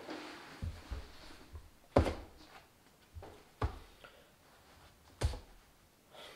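Three sharp knocks, about a second and a half apart, with softer low thumps between them: a cap and a notebook being handled and set down on a table.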